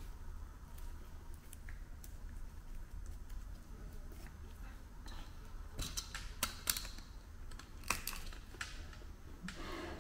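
Handling noises from tying a cotton bandage around an airway-training manikin and handling plastic airway equipment: light rustling, then a cluster of sharp clicks and knocks in the second half, over a low steady hum.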